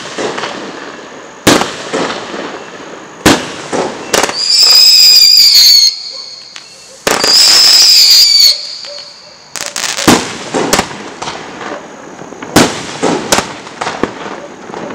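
High Rise 35-shot XL aerial firework cake firing: sharp bangs of shots and breaks every second or two, then two long, high whistling tones in the middle, the loudest sounds here, and after them a quicker run of sharp bangs and pops.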